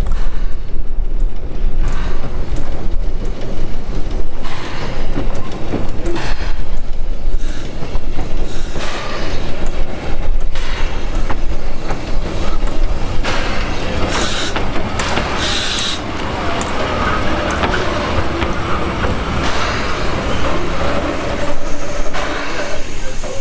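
Coffee Pot steam railcar rolling slowly past on the track, wheels clicking over the rail joints over a steady rumble, with two short hisses of steam just past the middle.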